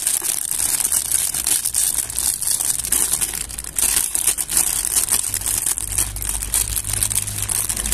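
Thin clear plastic bag crinkling and rustling as hands handle it and pull it open around a toy, a continuous stream of fine crackles.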